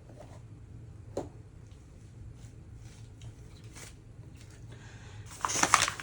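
A few light clicks and taps of items being handled, then, about five seconds in, loud crinkling of plastic packaging as the diamond-painting toolkit is picked up and opened.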